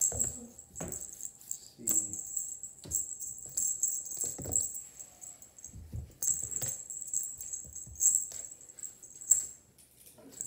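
Feather wand toy jingling in short bursts as a Bengal kitten leaps and bats at it, with scattered soft knocks of its paws landing on the wooden floor.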